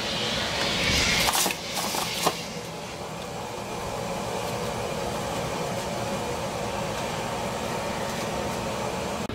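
Longevity Forcecut 40D plasma cutter blowing compressed air through its torch: a loud hiss of air with a couple of clicks for the first second and a half, then a steady running air-and-machine noise. This is the cutter's long post-purge of air.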